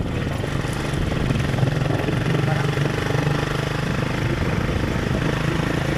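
Motorcycle engine running steadily while the bike cruises along a road, heard from the rider's position.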